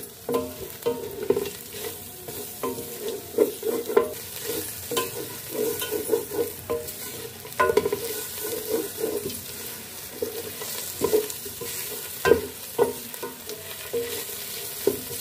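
Wooden spatula stirring and scraping grated bottle gourd and dry fruits frying in ghee around a metal pot: irregular scraping strokes with a few sharper knocks, over a light sizzle.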